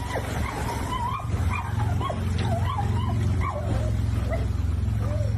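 A dog whining in a quick run of short, wavering whines and yips, about two a second, over a steady low rumble.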